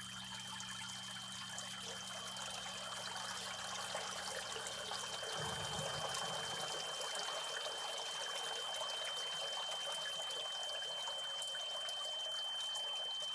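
Water jetting into a sump pit from the side inlet and splashing steadily onto the water in the pit. A low hum stops about five seconds in.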